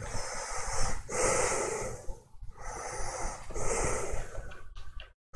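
Breathing close to the microphone: a few noisy breaths, the strongest about a second in, with a brief dead dropout just before the end.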